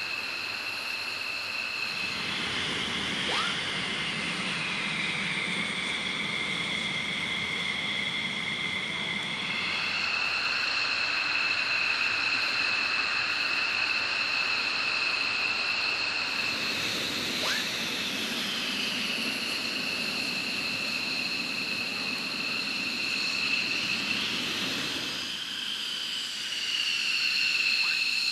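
F-15E Strike Eagle twin jet engines running on the flight line: a steady high-pitched turbine whine over a rushing noise, with the pitch gliding down a few times, about 3 s and 17 s in and again near the end.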